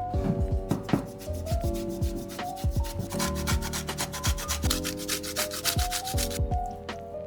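A fast run of rasping strokes from food preparation, about nine a second for some three seconds starting about three seconds in, with a few single strokes before it.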